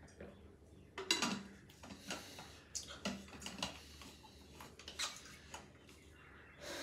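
Light clicks and clatter of an insulated water bottle's plastic cap being handled and screwed back on, a string of sharp ticks over several seconds.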